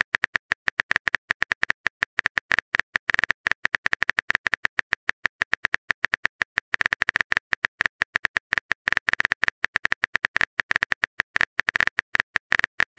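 Keyboard typing sound effect: a long run of rapid, uneven clicks as the next chat message is typed out.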